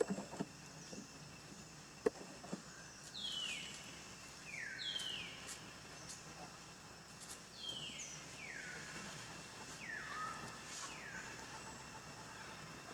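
Animal calls: a series of high, whistle-like calls, each sliding quickly down in pitch, about ten of them over several seconds, starting a few seconds in.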